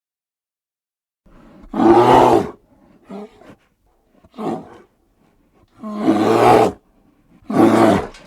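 A large animal roaring in a series of calls. The first loud roar comes about two seconds in, followed by two shorter, softer calls, then two more loud roars near the end.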